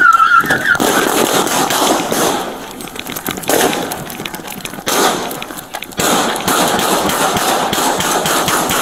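Body-worn camera rubbing and jolting against the officer's uniform as he runs on pavement, a dense noisy rustle broken by irregular knocks from footfalls and gear. A brief warbling tone sounds in the first second.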